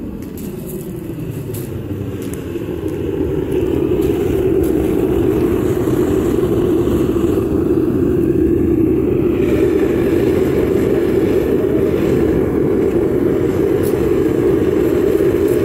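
Propane weed-torch burner firing into a homemade metal-melting foundry: a steady, low rush of flame that grows louder over the first few seconds as the furnace is approached, then holds level.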